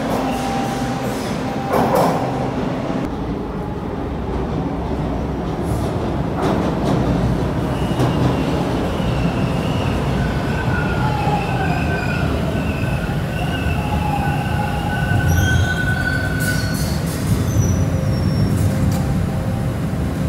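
TTC T1 subway train pulling into the station and slowing to a stop: a steady rumble of steel wheels on rail, with high, wavering squeals from the wheels and brakes through the middle of the braking.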